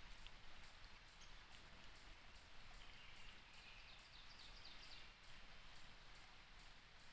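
Near silence in the woods at dawn: faint songbirds chirping, with a short run of high, falling notes about halfway through, over a soft background hiss.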